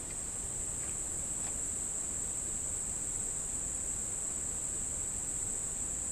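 A steady, high-pitched insect chorus droning without a break.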